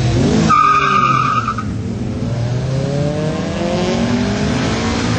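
A car's tyres squeal for about a second as it launches from a start line, then its engine note rises as it accelerates away.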